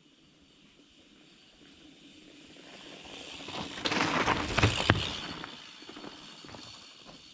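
A mountain bike passing close by on a dirt trail, its tyres rolling over dirt and dry fallen leaves. The sound grows louder to a peak about four seconds in, with a couple of sharp knocks, then fades as the bike rides away.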